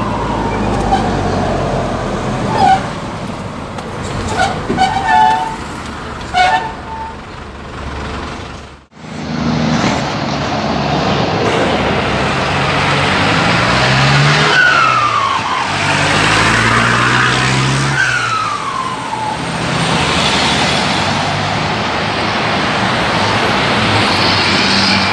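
Cummins 4BT turbo-diesel in a JAC 1063 truck pulling through the gears, its Holset HX30W turbo, grooved ('pente' work) to make it sing, whistling over the engine. Each time the throttle lifts the whistle falls in pitch, near the start and twice more in the second half.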